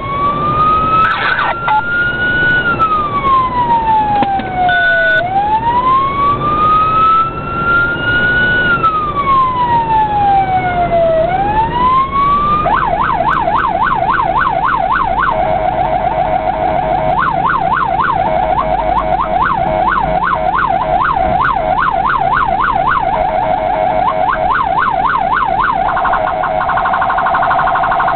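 Electronic emergency-vehicle siren running while the vehicle responds, heard from inside the cab. It starts as a slow rising and falling wail, then about halfway through switches to a fast yelp of about three sweeps a second. The yelp alternates with stretches of a rapid warble, over steady road and engine noise.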